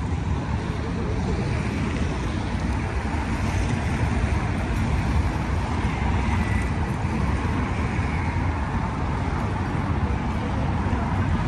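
Steady road traffic noise from cars passing on a city avenue, continuous and without a break.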